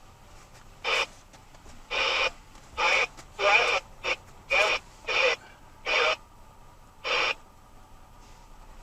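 Broken, unintelligible transmission from a two-way radio: about nine short, choppy bursts of garbled voice, too broken up to make out.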